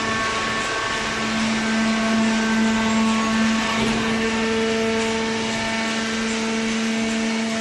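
Kraft paper baler machine running: a steady mechanical hum over a hiss. The hum grows louder about a second in and eases off around the middle.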